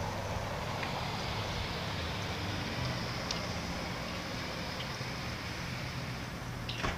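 Steady outdoor background noise, a low rumble with hiss, with a few faint clicks.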